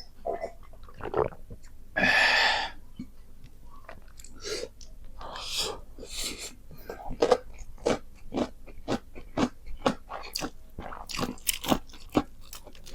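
Close-up mukbang eating sounds: a person chewing and crunching food, with a brief loud rush of noise about two seconds in and quick, sharp crunches that come thick and fast in the second half.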